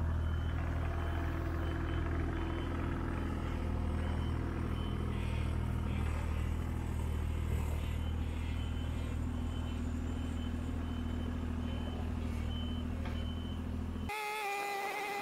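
Kubota mini excavator's diesel engine running steadily. The sound cuts off suddenly about fourteen seconds in, replaced by a steady high-pitched tone.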